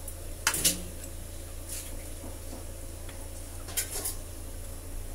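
A metal ladle stirring through a thick coconut-milk curry in an aluminium wok, clinking and scraping against the pan a few times: once about half a second in, once near two seconds, and twice near four seconds. A steady low hum runs underneath.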